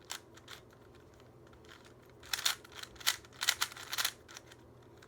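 Plastic Rubik's cube being turned quickly by hand during a speed solve: scattered clacks of the layers at first, a short lull, then a dense run of rapid clicking from about two seconds in.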